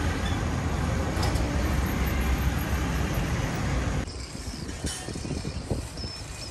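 Road traffic crossing a bridge: vans and motorbikes passing in a steady rumble. It drops off suddenly about four seconds in, leaving a quieter background with a few faint bird chirps.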